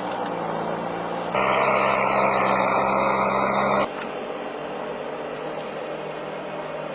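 Engine of a heavy forestry machine running steadily. About a second and a half in it turns abruptly louder and harsher for a couple of seconds, then drops suddenly to a quieter, hissier machine noise without the low hum.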